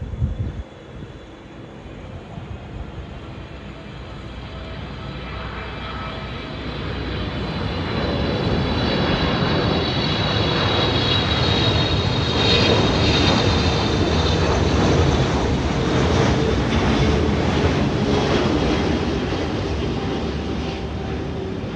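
Boeing 777 freighter's GE90 turbofans on landing approach, the jet noise swelling as the aircraft nears and passes, with a high fan whine at its loudest, then easing off slightly. A brief low thump sits at the very start.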